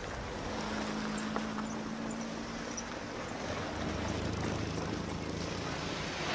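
A low mechanical hum over a steady hiss. It holds one steady pitch for the first few seconds, then a lower, deeper hum takes over about halfway through.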